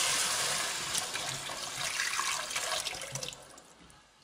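Cold water poured from a jug into a hot pot of fried minced beef and tomato paste, hissing as it goes in. The sound is loudest at the start and dies away over the last second or so as the pouring ends.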